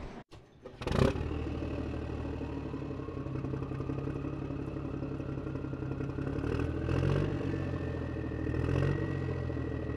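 An engine running steadily, starting abruptly about a second in after a brief hush, with a whine that rises slowly in pitch and two swells in level near the end.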